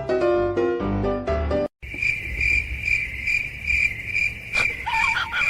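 A short piano tune cuts off, then a cricket chirps steadily at about two and a half high-pitched chirps a second. A single click and a few faint wavering calls come near the end.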